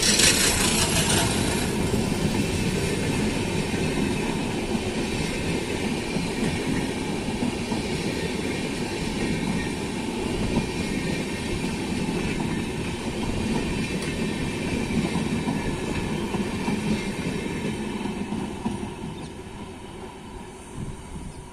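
Passenger train running along the track, heard from on board: a steady rumble of wheels on rail with clickety-clack, growing quieter over the last few seconds.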